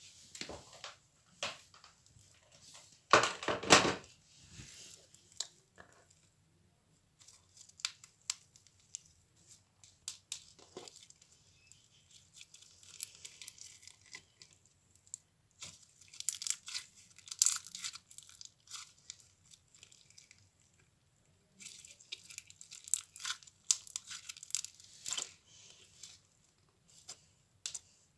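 Slime being squeezed and pulled apart by hand, making crackling, tearing sounds in irregular bursts with short pauses between them; the loudest burst comes about three seconds in.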